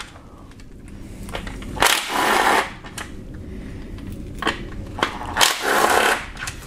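Cordless power tool on a 10 mm socket and extension spinning out transmission oil pan bolts, in two short runs about 2 s and 5.5 s in. Light clicks of bolts and tool come in between.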